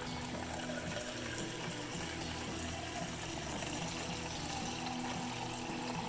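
Steady stream of water from a refrigerator door dispenser running into a stainless steel mug, filling it.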